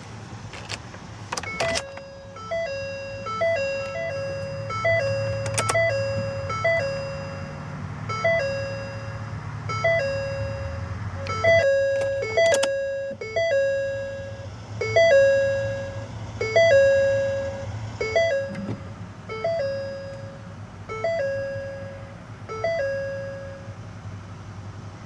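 Ford Super Duty cabin warning chime repeating a two-note ding-dong, a high note falling to a lower one, a little over once a second for about twenty seconds, with the ignition switched on before the diesel is started. Under it is a low steady hum, with a few sharp clicks near the start.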